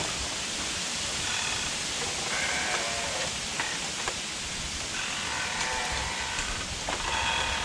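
Outdoor ambience: a steady hiss with several short, repeated animal calls.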